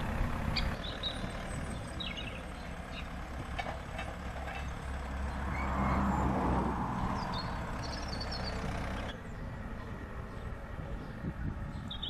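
Farm tractor engine running as it drives across a field carrying wrapped silage bales on its front and rear forks, getting louder as it comes close around the middle, then dropping abruptly to a quieter hum about nine seconds in.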